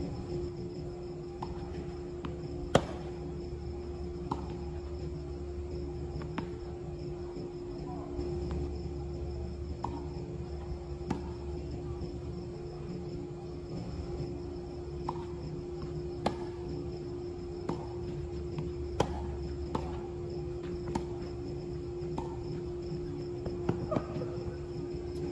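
Tennis rally: sharp pops of rackets hitting the ball and the ball bouncing on the court, about one every second or two, the loudest about three seconds in. Underneath, insects chirp steadily and a steady low hum runs.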